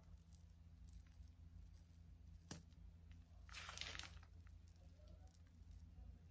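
Near silence: a low steady hum of room tone, with a faint sharp click about two and a half seconds in and a brief soft scrape about a second later.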